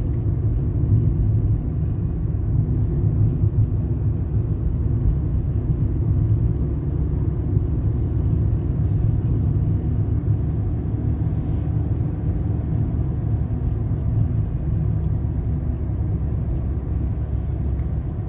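Car driving steadily along a road, heard from inside the cabin: a constant low rumble of engine and tyres.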